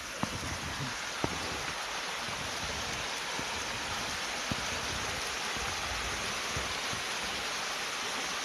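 Small woodland creek running, a steady even rush of flowing water, with a couple of faint ticks in the first second or so.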